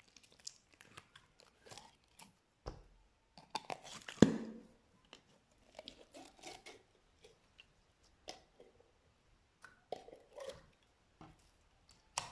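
Slime being worked, giving irregular crackles and pops, the loudest about four seconds in.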